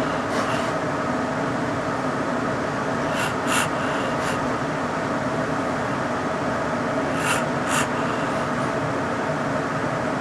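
Steady mechanical hum of a room fan or air conditioning, with a few faint, short puffs of hiss in pairs.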